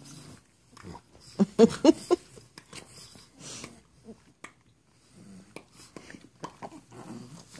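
Pug puppies making vocal noises and breathing sounds while they play. The loudest part is a quick run of short pitched calls about one and a half to two seconds in, and quieter sniffs and breaths come and go around it.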